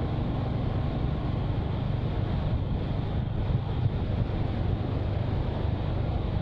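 Royal Enfield Hunter 350's single-cylinder engine and exhaust running steadily at road speed, with wind rushing over the fur-muffled microphone.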